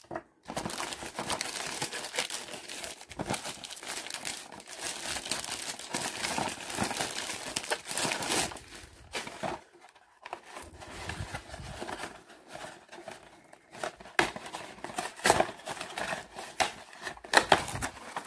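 A cardboard shipping box being opened and its packing handled: steady crinkling and rustling with scattered tearing and sharp clicks, breaking off briefly about ten seconds in.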